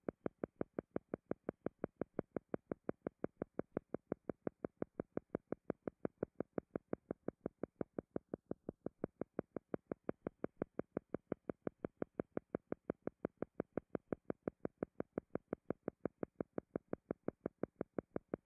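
A soft pulsing tone repeating evenly at about five short beats a second, a steady rhythmic pulse running under the session's pause.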